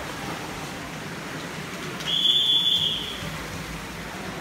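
A single high, steady signal tone just under a second long, about two seconds in, over the constant noise of an indoor swimming hall. It is a race official's signal to the swimmers waiting at the wall.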